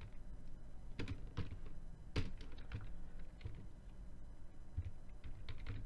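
Computer keyboard being typed on: faint, irregular keystroke clicks in short runs.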